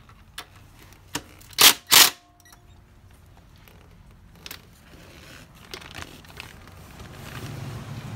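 A socket wrench on an extension loosening 12 mm camshaft bearing cap bolts: a few light clicks, then two loud metallic clacks close together about a second and a half in, with a short ring.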